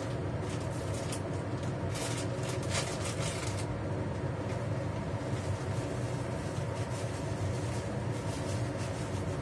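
Steady hum of a kitchen range-hood fan running over the stove. A burst of crinkly plastic-bag rustling comes about two to three and a half seconds in.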